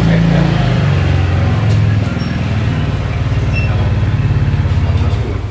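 A motor vehicle engine running close by, a steady low hum whose pitch drops a little about two seconds in.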